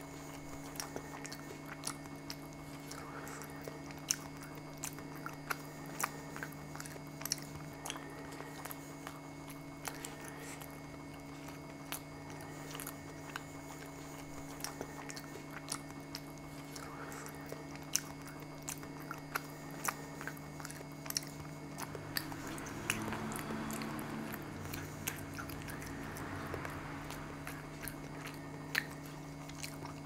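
A person chewing and biting food close to the microphone, with many small wet mouth clicks, over a steady low hum. The chewing grows louder for a few seconds about three-quarters of the way through.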